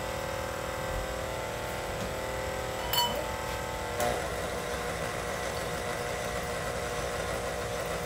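Steady hum from a running kitchen appliance, with a single metallic clink about three seconds in and a light knock about a second later as kitchenware is handled at the counter.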